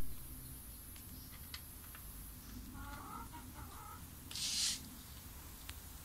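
Cat eating dry kibble from a plastic bowl, the chewing heard as faint scattered clicks. A bird calls briefly with a few short chirps near the middle, and a short hiss just past halfway is the loudest sound.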